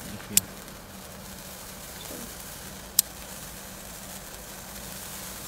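Handheld sparkler burning with a steady fizzing hiss, broken by two sharp snaps, one about half a second in and a louder one at about three seconds.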